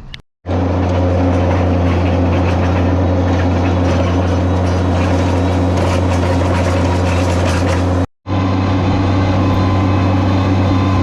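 Trencher engine running steadily under load while cutting an irrigation trench, with a low, even drone. The sound cuts out abruptly for a moment about eight seconds in.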